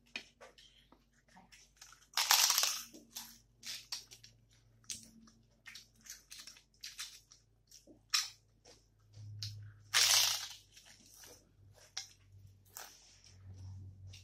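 Crisp fried papad crackling and crunching as it is bitten and chewed, with many small crackles and a louder crunch about two seconds in and again about ten seconds in.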